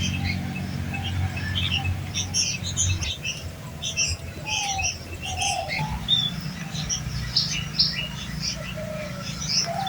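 Many small birds chirping in quick, overlapping short calls, with a few lower gliding notes and a steady low hum underneath.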